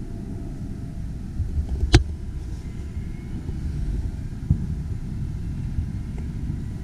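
Distant fireworks booming and rumbling in a low, uneven roll, with one sharp crack about two seconds in and a smaller thump a couple of seconds later.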